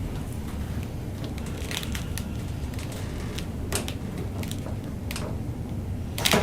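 Faint rustles and clicks over a steady low hum, then one sudden loud crack near the end as a chiropractic Y-strap pull on the neck is given, a deliberately light first pull.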